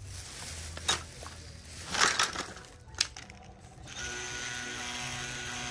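A few handling clicks and knocks, then about four seconds in a Ryobi ONE+ HP 18V brushless cordless rotary tool with a carbide burr switches on and runs steadily at its lowest speed, spinning free.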